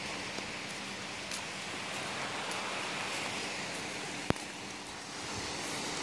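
Steady outdoor hiss of wind and distant surf with a faint low steady hum under it, and one sharp click about two-thirds of the way through.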